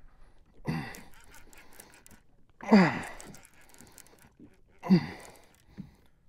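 A man grunting and exhaling hard with effort three times, about two seconds apart, each sound falling in pitch, the middle one loudest. It is the strain of pulling against a big fish on a heavy rod. Faint ticks come between the grunts.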